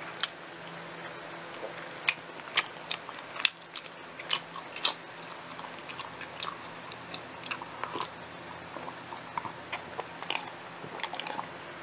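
Close-miked chewing of pizza: many short wet mouth clicks and smacks at an irregular pace, thickest in the first few seconds and thinning later. A faint steady low hum lies underneath.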